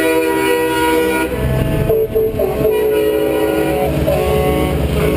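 Semi-truck air horns blowing in long, overlapping blasts that change pitch every second or so as the convoy trucks pass, over the low rumble of their diesel engines.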